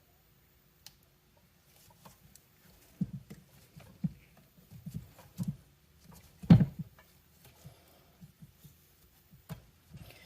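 Handling noises from gloved hands working on the chainsaw while pressing heat-reflective tape onto the crankcase: a single click, then irregular taps, rubs and knocks, the loudest a knock about six and a half seconds in.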